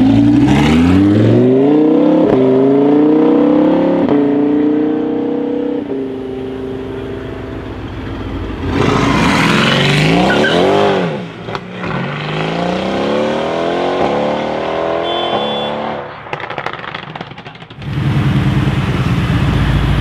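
Supercars pulling away one after another. First a Lamborghini Huracán's V10 revs up through several quick upshifts. Then a Mercedes-AMG GT R's twin-turbo V8 with an Fi aftermarket exhaust accelerates hard past, pitch rising and falling, climbs through the gears again and ends in a burst of exhaust crackles and pops. In the last two seconds a deeper engine runs at low revs.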